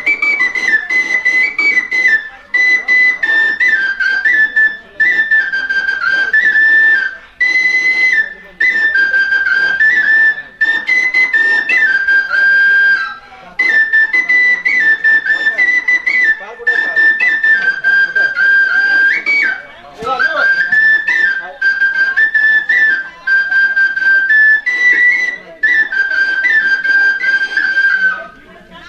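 Bansuri (bamboo transverse flute) playing a high melody in short phrases, each separated by a brief pause for breath.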